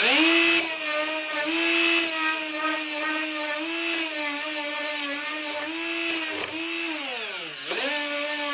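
Handheld electric power tool motor spinning up, running steadily with slight momentary dips in pitch, winding down about two-thirds of the way through, then spinning back up as the trigger is pulled again.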